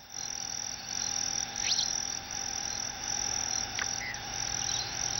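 Crickets chirping steadily in a high, slightly pulsing drone, with a couple of brief higher chirps over it.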